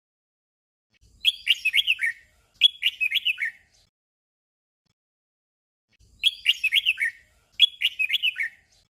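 Red-whiskered bulbul singing a short, bright song phrase twice in quick succession, then the doubled phrase again after a pause of about two and a half seconds.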